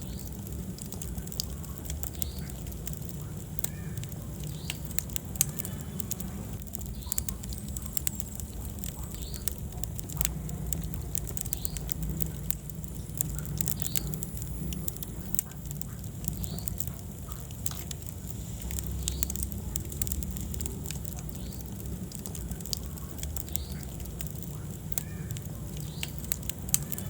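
Wood fire in a fireplace crackling, with frequent small pops and one louder pop about five seconds in, over a low steady rumble of the flames.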